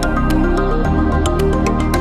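Background music: calm electronic, new-age style track with a steady beat.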